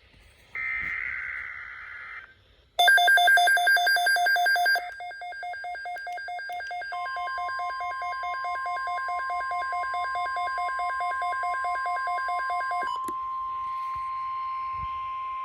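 Emergency Alert System tones from a NOAA weather radio: a short burst of warbling digital header data, then a rapid steady beeping alarm, loud for about two seconds and softer after. About seven seconds in, the steady single-pitch NOAA warning tone joins it and keeps sounding after the beeping stops near thirteen seconds, announcing a severe thunderstorm watch.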